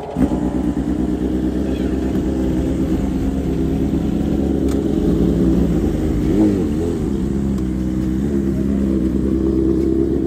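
Several sport motorcycles idling together in a steady, layered engine drone, with one bike's throttle blipped briefly about six and a half seconds in.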